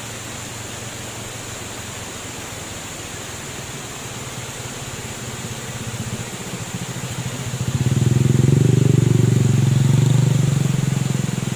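Steady rushing of flowing water, with a motor vehicle passing: its engine hum grows louder from about halfway through, is loudest near the end, and then starts to fade.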